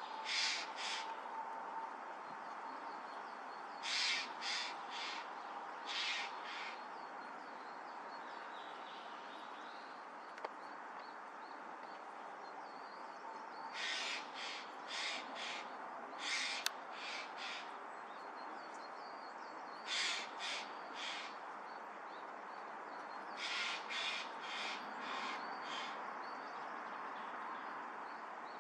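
Crows cawing in short series of two to four harsh calls, several series in turn with pauses between, over a steady background hiss.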